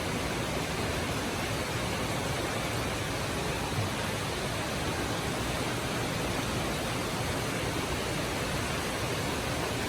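Heavy rain falling hard, a steady, even hiss.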